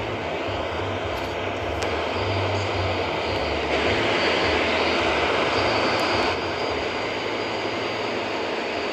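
Steady road noise inside a moving car: tyres hissing on a wet highway over a low engine hum. The hiss grows louder for a couple of seconds near the middle.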